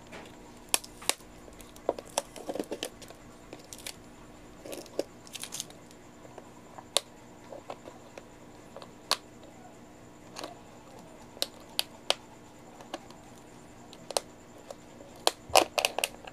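Snap-on lid of a thin plastic deli cup being worked open by fingers: scattered sharp plastic clicks and snaps, with a quick flurry of them near the end as the lid comes loose.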